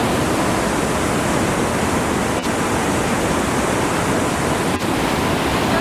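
Tannforsen waterfall: a large mass of water falling and rushing in a loud, steady roar.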